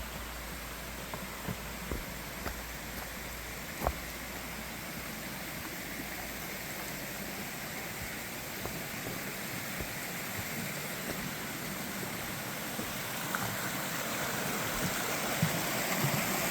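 A rushing gorge stream and small waterfall: a steady wash of water that grows gradually louder, with a few light knocks.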